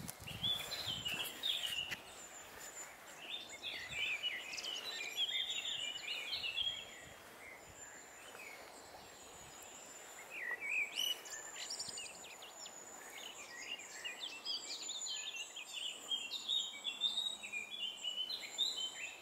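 Songbirds singing outdoors in bouts of quick, chirping phrases, with a lull of a few seconds near the middle, over a faint steady background hiss.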